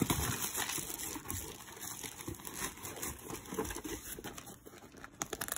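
Thin plastic packaging bag crinkling as a bagged item is handled and unwrapped, in irregular rustles that thin out in the second half.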